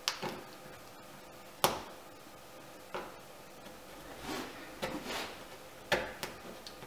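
Scattered sharp clicks and small knocks of a hand tool against the metal chainplate hardware on a fiberglass deck while the chainplate is being taken apart, about six in all, the loudest just under two seconds in and again about six seconds in.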